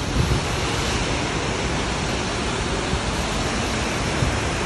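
Mountain torrent rushing down a rocky gorge: a steady roar of white water.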